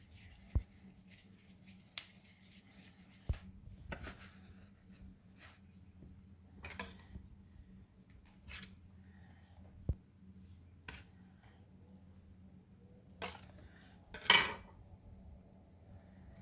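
Scattered sharp clicks and light knocks of kitchenware being handled, with short rustles and a louder brief rustling crackle about 14 seconds in.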